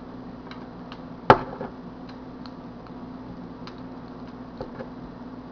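Handling noise from a tube of construction adhesive being worked over a metal plate on a tabletop: one sharp knock about a second in, then a few faint light ticks, over a steady low hum.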